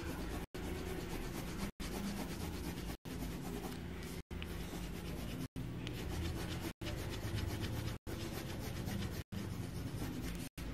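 Pencil scratching and rubbing on paper in quick shading strokes. The sound cuts out completely for a split second at even intervals, about every second and a quarter.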